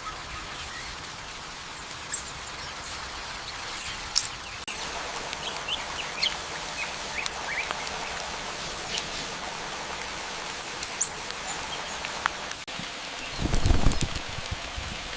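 Forest ambience of birds chirping over a steady background hiss, short high chirps scattered throughout. About thirteen seconds in, a louder low rumble stands out.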